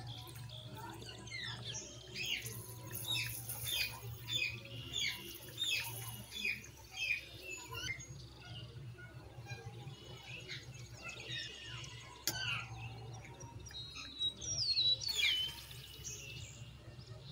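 Small birds chirping: a quick run of sharp, downward-sweeping chirps for several seconds, then a few louder chirps near the end, over a steady low hum.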